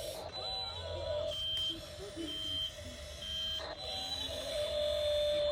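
Electronic beeping from an RC toy construction vehicle's sound module, like a reversing alarm: short high beeps about once a second, then a longer lower tone near the end, over a steady low motor hum.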